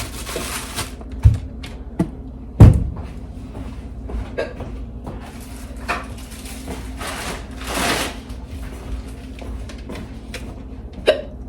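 Kitchen food-prep handling sounds: a few sharp knocks and thumps, the loudest about two and a half seconds in, and a spell of rustling around eight seconds in.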